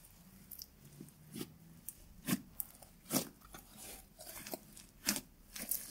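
Glitter-packed clear slime being kneaded and pressed by hand, giving irregular sticky pops and crackles, about two a second.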